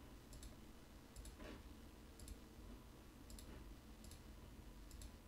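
Faint computer mouse clicks, about five spread through the stretch, over near-silent room tone.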